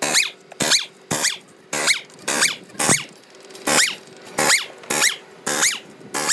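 Repeated rasping scraping strokes, about two a second, each with a squeak that glides up in pitch.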